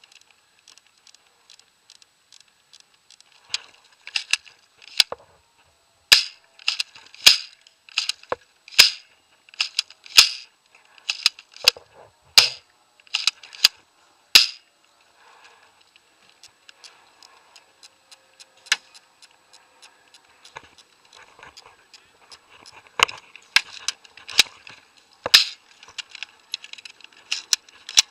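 Airsoft gun firing single shots as sharp cracks: a string of about a dozen roughly a second apart, then a pause and a few scattered shots later, with faint clicks and rattles in between.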